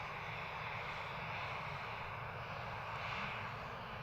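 Gulfstream G550's Rolls-Royce BR710 turbofan engines running steadily at low power while the jet holds before takeoff.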